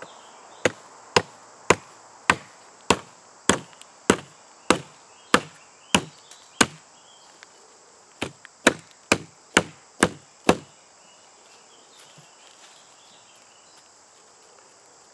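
Hatchet chopping a notch into a sapling lying on the ground: about eleven sharp strokes at roughly two a second, a short pause, then six more.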